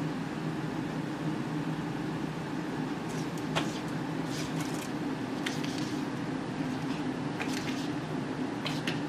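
A steady low mechanical hum, with a few faint, short high-pitched ticks or rustles from about three seconds in.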